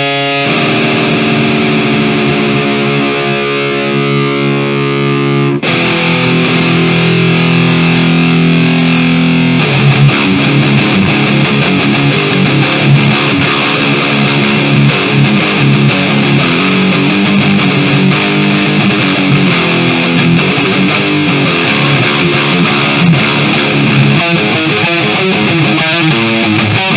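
Kramer Baretta Special electric guitar in drop D tuning played through an EVH 5150 amp head with heavy distortion and no effects or reverb. A held chord rings for about five seconds, then a second chord, then a fast riff with chugging notes runs on.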